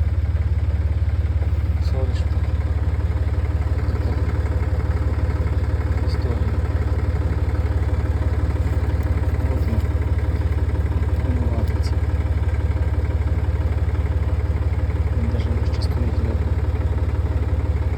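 Engine idling steadily, with a fast, even beat, and faint voices in the background.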